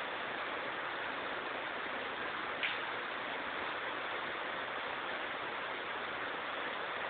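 Steady hiss of recording noise, with a single sharp click from the pool table about two and a half seconds in.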